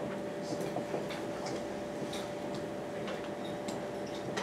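Classroom room tone: a steady hum under scattered faint clicks and taps.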